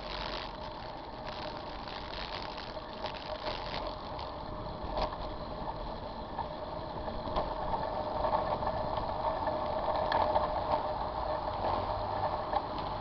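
City car traffic running steadily behind a bicycle ridden on a wet street, with short clicks and rattles from the bike, more of them in the first few seconds.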